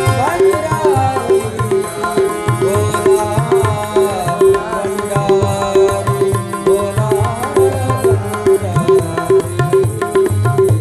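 Harmonium and tabla playing a bhajan accompaniment. Over the harmonium's held notes, the tabla keeps a steady beat of about three ringing strokes a second, with deep bass-drum strokes beneath.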